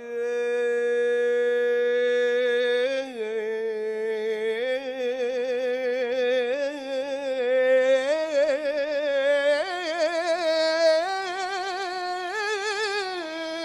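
A solo male voice singing a long melismatic phrase of Egyptian Islamic devotional chant (ibtihal), drawn out on a single syllable. He holds one note for about three seconds, then moves through stepping, quavering ornaments.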